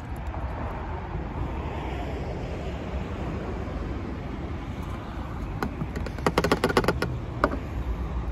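Steel Seal liquid head gasket sealer pouring steadily from its plastic bottle into the car's coolant tank. After about five and a half seconds, a quick run of clicks and knocks as the bottle is handled and taken away.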